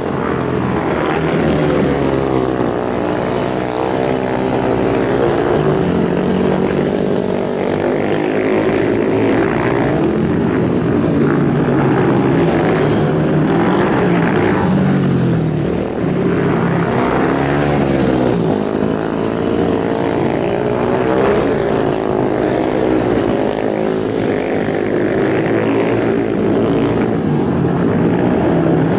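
Several superbike engines running together at high revs, their pitches rising and falling as the riders rev and shift.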